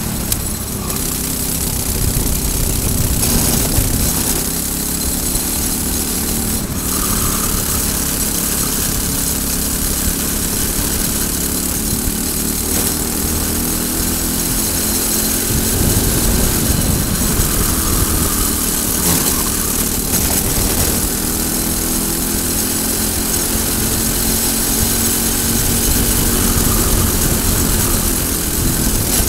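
Briggs & Stratton single-cylinder four-stroke kart engine running near full throttle at racing speed, its pitch rising and falling as the revs climb and drop through the corners, with wind rushing past the open kart.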